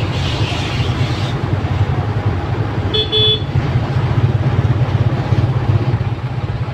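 Motorbike engine running steadily as it is ridden, a low rumble throughout. A horn toots briefly about three seconds in.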